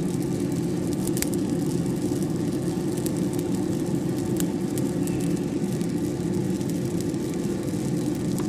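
Diedrich drum coffee roaster running with a steady low rumble from its burner, drum and fans, with scattered sharp pops from the beans. The pops are second crack, the sign of a dark roast near its finish.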